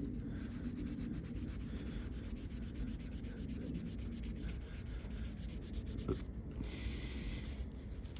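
Scotch-Brite abrasive pad scrubbing the metal of a car's brake caliper support, a steady rubbing scrape, with a small click about six seconds in.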